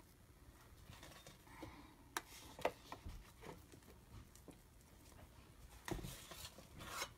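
Faint clicks and scrapes of a metal spoon and mashed potato against an aluminium foil pan and pot as potato is spooned onto the pie. The clicks are scattered, with a longer scrape about six seconds in.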